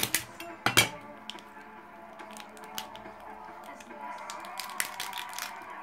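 Large kitchen knife chopping through brown crab shell on a wooden cutting board: two sharp knocks in the first second, then lighter cracks and clicks as the shell is pulled apart by hand. Soft background music underneath.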